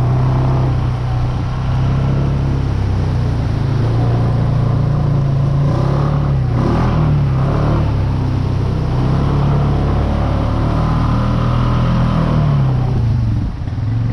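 Off-road vehicle engine running steadily while riding, its pitch rising briefly about halfway through and again near the end.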